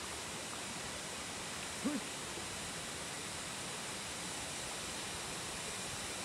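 Steady, even rushing hiss of outdoor background noise, with one brief pitched call about two seconds in.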